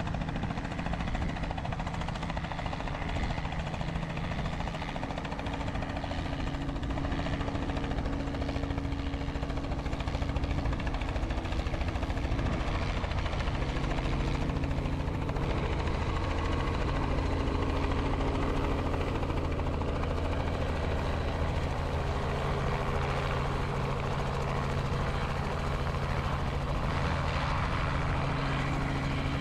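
Robinson helicopter's rotor and piston engine running steadily as it comes in on a normal approach and settles into a low hover. The low hum grows stronger from about halfway through as it nears.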